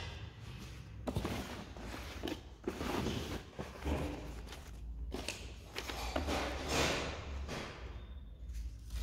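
Rustling of paper wrapping and leaflets, with light knocks and scrapes of a cardboard box being handled as its contents are unpacked.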